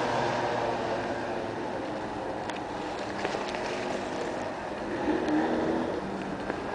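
Street traffic: a passing vehicle's engine fades at the start, leaving a steady hum of traffic with a few faint clicks. A brief engine tone rises about five seconds in.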